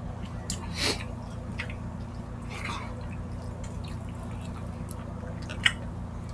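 Wet chewing and lip-smacking of people eating rice and saucy meat with their hands, with a louder smack about a second in and a sharp click near the end, over a steady low hum.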